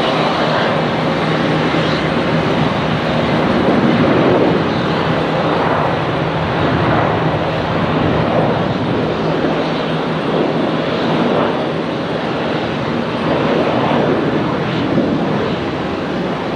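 Airliner engines running nearby: a loud, steady rush of noise with a low hum underneath that fades out about halfway through.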